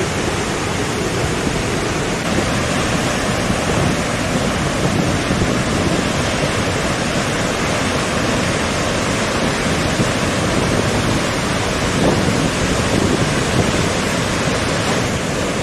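Dettifoss, a large, high-volume waterfall, sending down a steady, loud rush of falling water.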